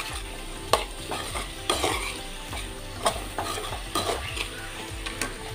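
A steel spoon stirring and scraping raw cashews in masala in a metal pan, clinking against the metal about once a second, over a steady sizzle of the masala frying with a little water just added.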